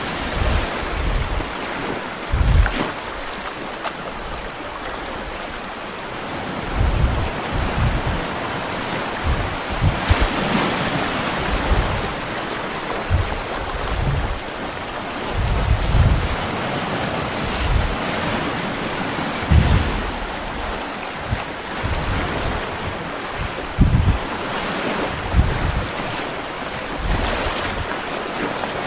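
Sea sound effect played over the stage: a steady wash of ocean surf and wind, with irregular low swells of waves every second or two.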